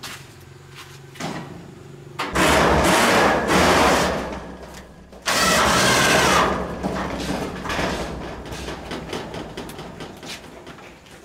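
A motor-driven power tool run loud twice, each run about three seconds long; the second one dies away slowly over several seconds.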